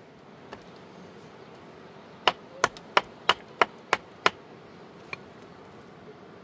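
Seven sharp knocks on stone in quick, even succession, about three a second, during dry-stone wall building, with a fainter knock a second later.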